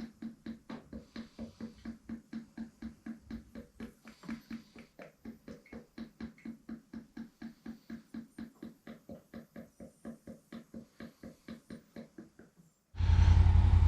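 Automatic transmission fluid glugging out of a jug as it is poured into a log splitter's hydraulic reservoir, a steady run of glugs about five a second. Near the end a much louder steady hum starts abruptly.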